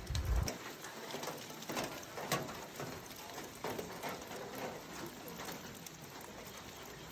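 Rain falling: an even hiss of rain with many scattered drops tapping irregularly, and a brief low rumble in the first half second.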